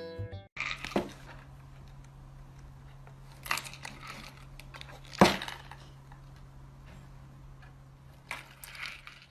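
A cat rummaging with its head inside a small paper box: scattered light rustles, scrapes and taps, the sharpest about five seconds in, over a steady low hum.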